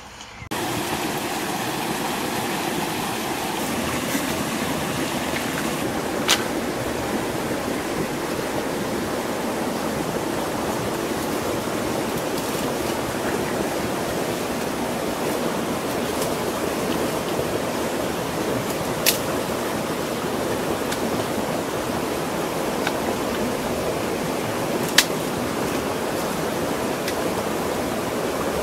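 Steady, even rushing noise of outdoor ambience, broad like running water or wind, with three sharp snaps spread through it.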